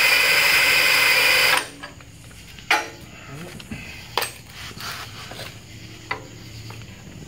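Drill spinning the freshly painted ring and pinion gears of a Dana 30 front differential in reverse to roll out a contact pattern; it runs at a steady speed for about a second and a half, then stops. A few light clicks follow.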